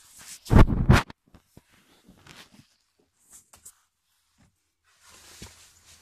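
Rustling and bumping of a hand-held phone being carried over rock and dry leaves, with a loud rubbing thump on the microphone about half a second in, a few faint clicks after it, and a soft hiss near the end.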